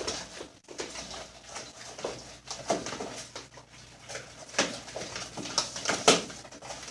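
Hands squeezing and kneading sticky glue slime in a bowl: irregular wet squelches and smacks, the loudest about six seconds in.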